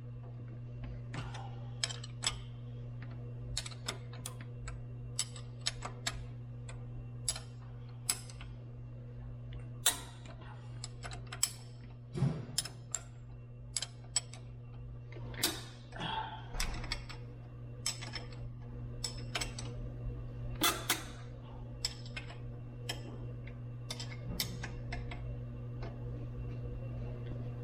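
Irregular clicks and clinks of hand tools and metal parts being handled on the motorcycle, over a steady low hum that stops abruptly at the end.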